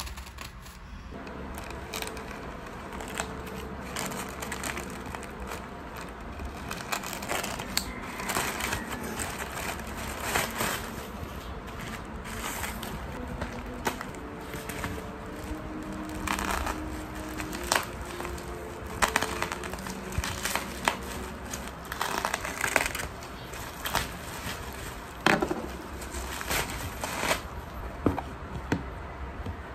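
Crinkling, rustling and light clicks of objects being handled, coming irregularly throughout.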